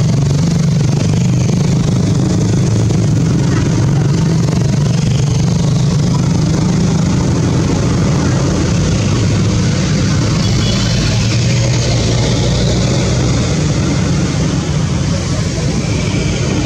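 A steady low rumble, like an engine or motor running, holding an even level throughout.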